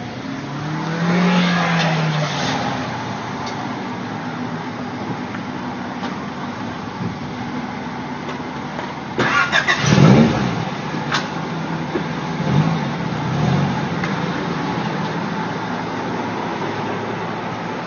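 Car engines passing by on the road, with a steady hum throughout. A pitch sweep rises in the first couple of seconds, and a louder pass comes about nine to ten seconds in, its pitch falling as it goes by.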